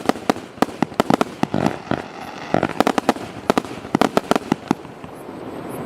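Pyrotrade 'Exorzist 3' compound firework battery with 20 mm shots firing: a rapid string of sharp bangs, several a second, thinning out near the end.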